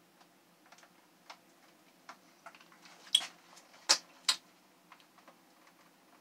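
Blue cream lipstick being applied, with scattered faint clicks, then three sharper wet clicks about three to four and a half seconds in as the lips are pressed together.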